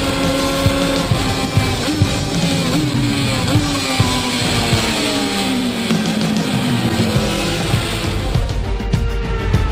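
Racing engine noise with a slowly falling pitch, mixed with music that has a steady beat; near the end the engine fades and the music takes over.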